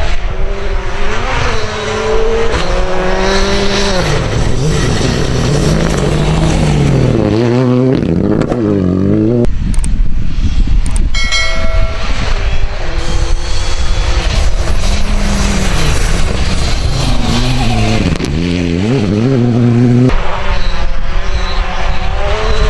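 Rally cars driven flat out on a dirt stage: engines revving hard, the pitch climbing and dropping through gear changes. The sound cuts abruptly between passes twice.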